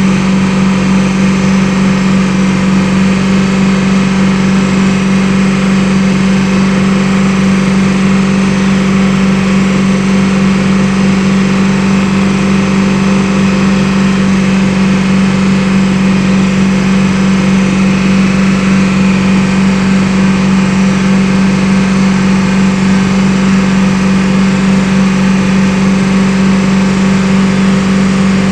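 BMW engine idling steadily, with an even hum.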